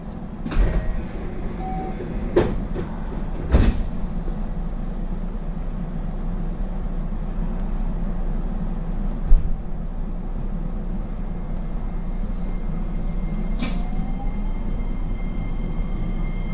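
Interior running noise of a JR West 225 series 5100 subseries electric train: a steady rumble with a low hum, and a few sharp knocks in the first four seconds. The noise slowly grows louder, and near the end a whine from the traction motors rises in pitch.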